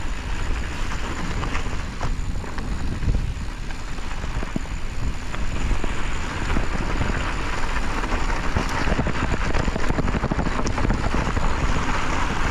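Mountain bike rolling fast over a dirt and gravel singletrack: steady tyre rumble and hiss with many small clicks and rattles from the bike, a little louder in the second half.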